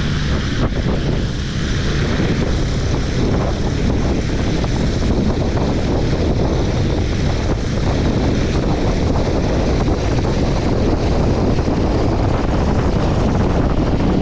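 DJI Agras T40 agricultural spraying drone hovering low overhead, its coaxial rotors running with a loud, steady drone and rotor downwash buffeting the microphone. It grows slightly louder in the second half as it comes close.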